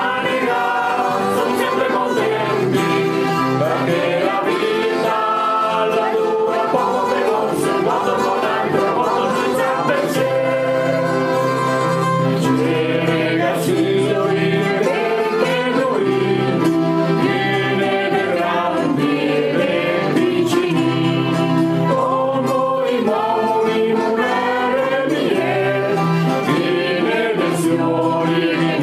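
Music: a song with several singing voices over instrumental accompaniment and a steady bass line.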